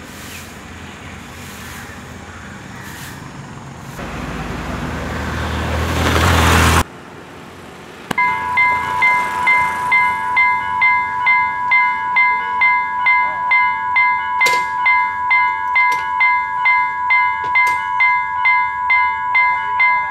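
A road vehicle passing close with rising noise that cuts off abruptly, then, from about eight seconds in, the level crossing's electronic warning bell ringing in an even repeated beat of nearly two strokes a second as the barriers come down: the signal that a train is approaching.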